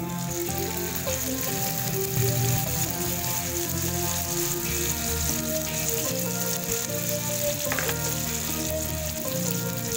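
Batter-coated spring-roll wrapper strips deep-frying in hot oil, a steady sizzle that starts as the pieces go into the pan. Background music plays underneath.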